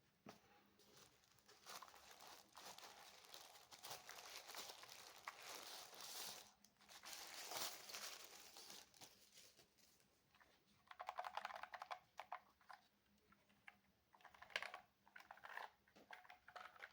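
Faint rustling and crinkling of packaging for several seconds, then two short runs of rapid clicking about eleven and fifteen seconds in, typical of keys on a low-profile mechanical keyboard being pressed.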